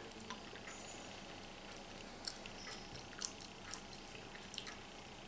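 Faint chewing and small wet clicks of someone eating grilled squid by hand, with a few sharper clicks between about two and five seconds in. A faint steady hum sits underneath.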